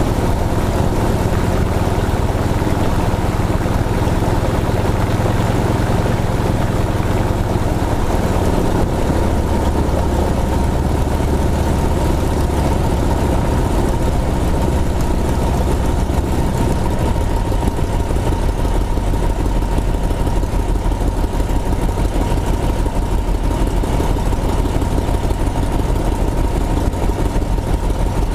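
Aircraft engine and propeller of a replica Spirit of St. Louis running steadily, heard from inside the fabric-covered cabin; the engine note shifts a little about nine seconds in and again after about seventeen seconds.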